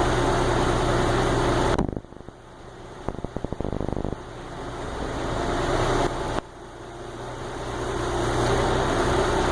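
An engine running steadily at idle, its sound cutting out abruptly about two seconds in and again just past six seconds, each time building back up. A quick run of rattling clicks comes between three and four seconds.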